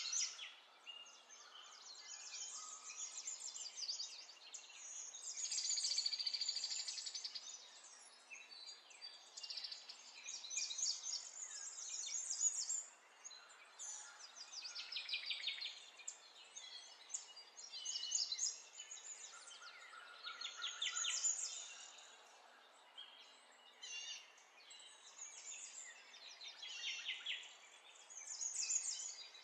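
Birds chirping and trilling almost without pause, in overlapping bursts of a second or two.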